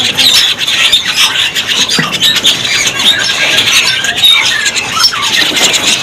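Many caged birds calling at once: a dense, overlapping chatter of short squeals, squawks, whistles and quick chirps with no pause.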